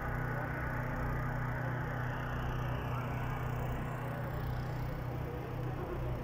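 Engine running steadily with a low, even hum, with faint street noise over it.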